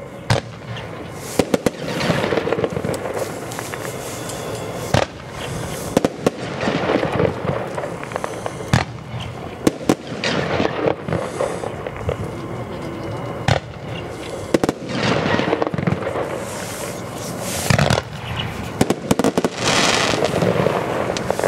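A Gaoo consumer firework battery firing shot after shot: sharp launch thumps and aerial bursts at uneven intervals, over a continuous hiss and crackle of burning stars.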